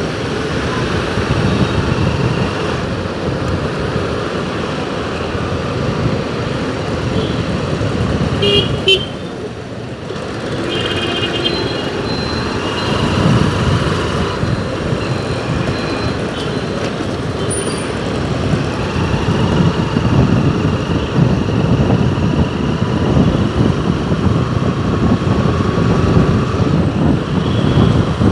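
City road traffic: engines running under a steady rumble, with horns honking now and then, a few short toots about nine seconds in and longer honks a few seconds later.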